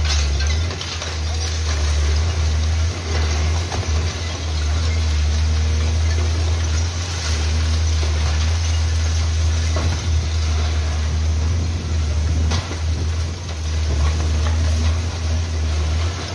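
Diesel engine of a long-reach demolition excavator running with a steady low rumble, with a few short knocks and crunches of concrete debris as the boom works into a collapsed building.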